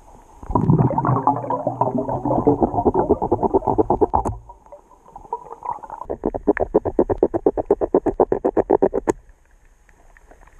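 Muffled underwater rasping of a knife blade sawing through old lobster-trap rope on the sea floor. It comes in two spells of rapid strokes; the second is a quick, even rhythm of about ten strokes a second.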